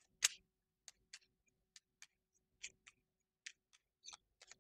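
Board-game cards being shuffled by hand: a faint series of short, sharp clicks at an uneven pace, about two or three a second, the loudest just after the start.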